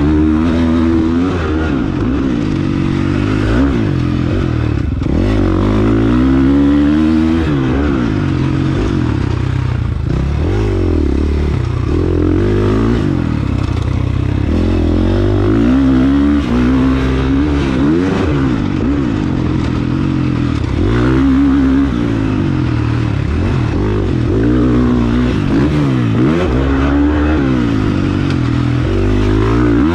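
KTM motocross bike's engine, heard close up from the bike, revving up and backing off over and over as it is ridden around a dirt track. Its pitch climbs and falls repeatedly with the gear changes and throttle.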